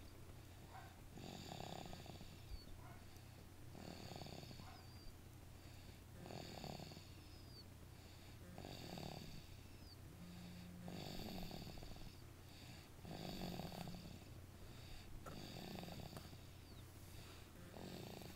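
A sleeping person snoring faintly, one snore about every two and a half seconds in an even rhythm.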